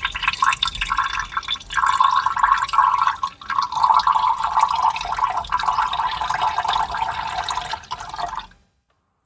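Liquid poured in a steady stream into a glass, with brief dips in the flow; the pour stops abruptly near the end.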